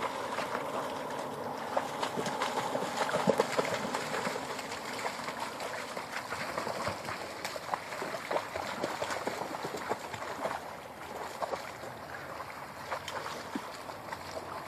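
Dogs wading and splashing through shallow river water: irregular small splashes over a steady wash of water noise.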